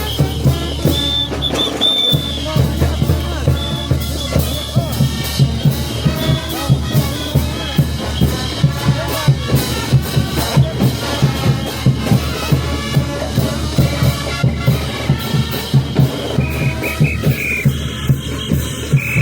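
Brass band playing festival dance music, with a steady, driving bass-drum beat under the horns.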